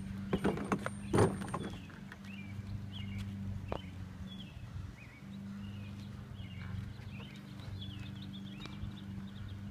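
Red plastic pull wagon rolling over pavement, its wheels clattering, with several sharp knocks in the first two seconds as it jolts along. Under it runs a low steady hum, with faint short chirps above.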